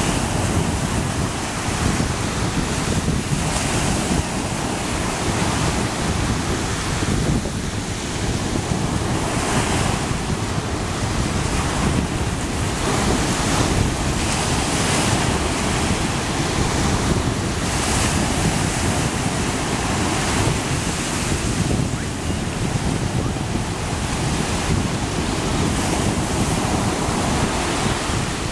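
Small ocean waves breaking and washing up a sandy beach: a continuous hiss of surf that swells every few seconds as each wave runs up the sand, with wind rumbling on the microphone.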